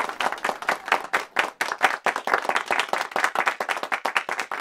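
A small crowd applauding, many quick hand claps at once.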